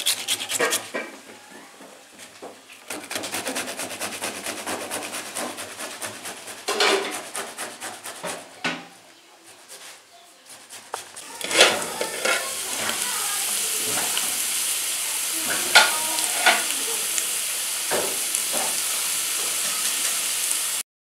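Tomatoes rubbed against a metal box grater in rapid scraping strokes, then, from a little past halfway, a steady sizzle of potatoes and onions frying in a metal pot, broken by a few sharp knocks.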